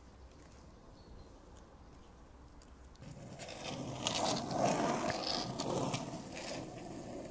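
Skateboard wheels rolling over asphalt as a rider passes close by: a rough rolling rumble with clacks, starting about three seconds in, loudest in the middle and cutting off suddenly at the end. Before it, only faint background noise.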